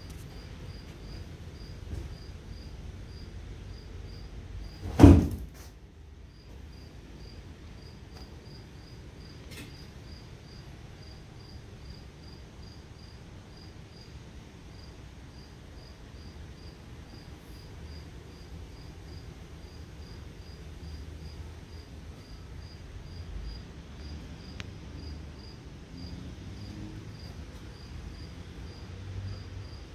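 A cricket chirping steadily, about two and a half short high chirps a second. A single loud knock comes about five seconds in.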